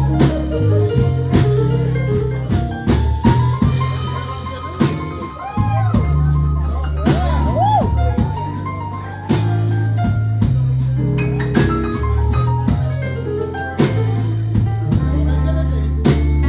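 Live band music: a Nord Stage 3 keyboard and a drum kit over held low bass notes, with a few bending, sliding notes near the middle.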